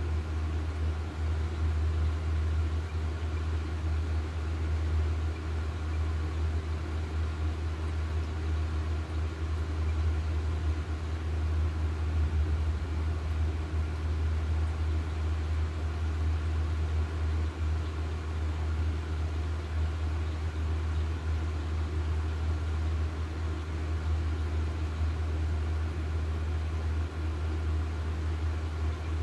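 Steady low machine hum that does not change, with faint steady higher tones over it.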